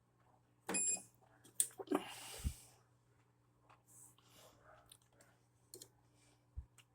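A laundry machine's control panel gives a single short electronic beep as a button is pressed. Scattered clicks and a couple of dull knocks follow, over a faint steady hum.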